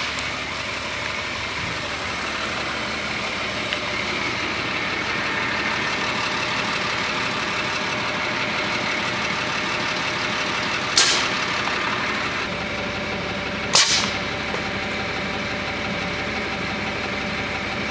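M35A3 Deuce and a Half truck's diesel engine running steadily, with two sharp blasts of compressed air about 11 and 14 seconds in as the truck-fed airsoft mortar fires.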